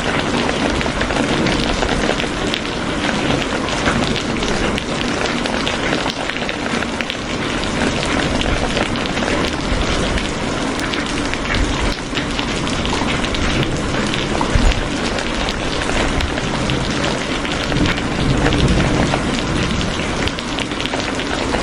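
Steady rain falling on a surface, a dense patter of many drops.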